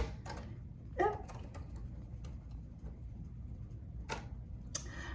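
Slow, single keystrokes on a vintage Olivetti Underwood manual typewriter, typed one finger at a time: a handful of sharp clacks spaced irregularly, the loudest about four seconds in.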